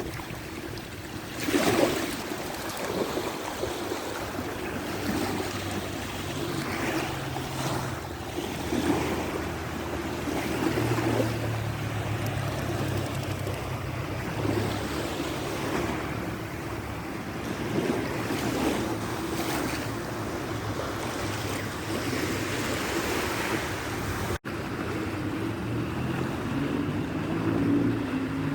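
Water washing and splashing with wind buffeting the microphone, under a faint low hum; the sound cuts out for a moment near the end.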